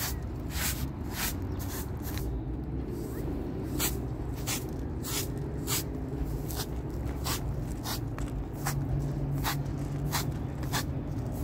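Short straw hand broom sweeping a rug in brisk strokes, a brushing swish roughly every half second, over a steady low rumble.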